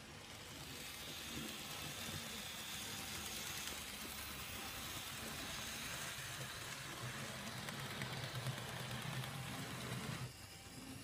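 Model railway train running on the track: the locomotive's small electric motor humming and its wheels running on the rails. It gets louder about a second in and drops away suddenly near the end.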